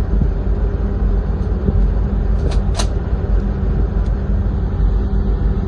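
Steady low rumble of wind on the microphone and the ship's engine running, heard from a container ship's deck. Two short, sharp sounds come close together about halfway through.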